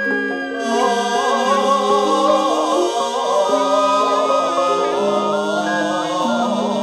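Javanese gamelan music in slendro tuning, with voices singing a slow, wavering melody over long, steady ringing notes from the bronze instruments.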